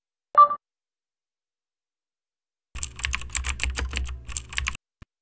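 A short tonal blip, then about two seconds of rapid computer-keyboard typing, many quick keystrokes in a row: a typing sound effect.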